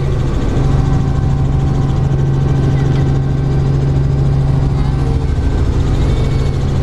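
A light helicopter's engine and rotor drone, heard from inside the cabin in flight: a loud, steady low hum with a fast, even pulsing underneath.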